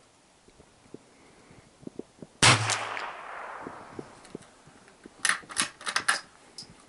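A single shot from a Savage .22 LR bolt-action rifle about two and a half seconds in, with a fading echo. About three seconds later comes a quick run of sharp metallic clicks as the bolt is worked.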